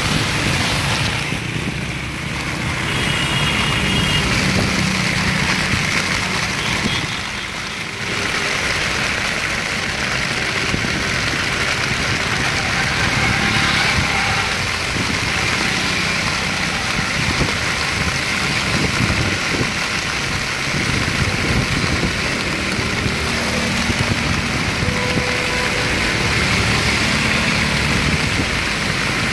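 Heavy rain falling on a wet city street, a steady hiss, with the engines of passing three-wheeled auto-rickshaws and other traffic running underneath.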